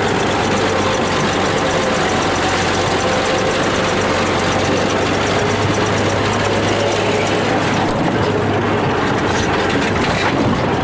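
Bulldozer's heavy diesel engine running steadily under load.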